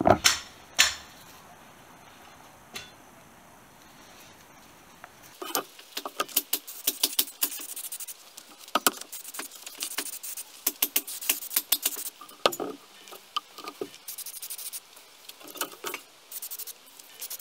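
Aerosol spray adhesive hissing as it is sprayed over thin metal blend-door plates, with a few sharp clicks at the start. From about five seconds in come many light metallic clicks and rattles as the plates are handled on the table.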